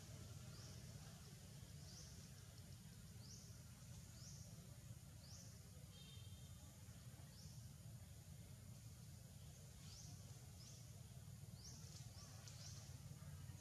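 Faint woodland ambience: short, high rising chirps at irregular intervals, roughly one a second, over a low steady rumble.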